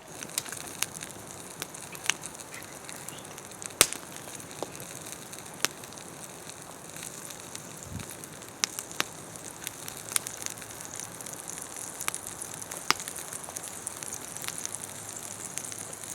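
Skin-on duck breast sizzling in its rendering fat on a hot rock by a campfire: a steady hiss with frequent sharp pops and crackles.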